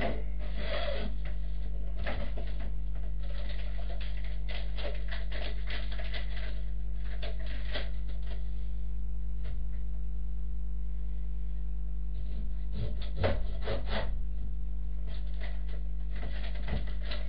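Irregular scraping, rubbing and light knocks of bacon being prepared on a wooden cutting board, over a steady low electrical hum.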